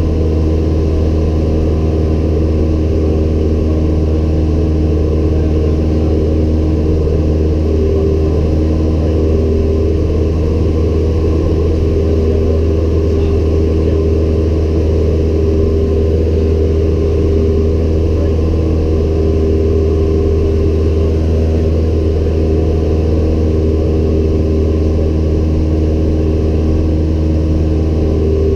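Cessna 172M Skyhawk's four-cylinder Lycoming engine and propeller running steadily in flight, heard from inside the cabin as a constant deep drone with no change in pitch or level.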